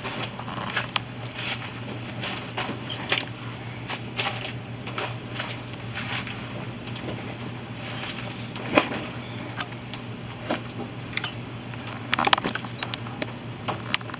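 Irregular small clicks, taps and rustles over a steady low hum. One sharper tap comes about nine seconds in, and a quick flurry of them near the end.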